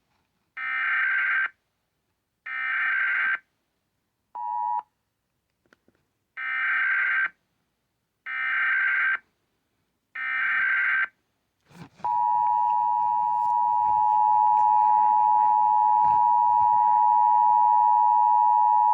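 Emergency Alert System Required Monthly Test: the SAME header's buzzy, screeching digital data bursts, each about a second long and about two seconds apart, with one brief tone blip among them. About twelve seconds in, the steady two-tone EAS attention signal (853 and 960 Hz) begins and holds.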